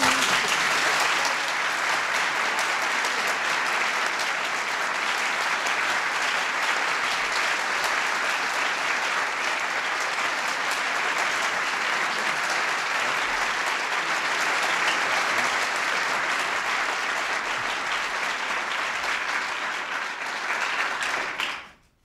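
Audience applauding in a steady, sustained round of clapping that stops abruptly near the end.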